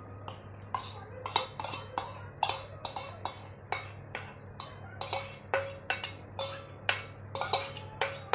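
Stainless steel bowl and spoon knocking and scraping against a steel mixing bowl, about three clinks a second, some with a short metallic ring, as soaked dry fruit is scraped out into thick cake batter. A faint steady low hum lies underneath.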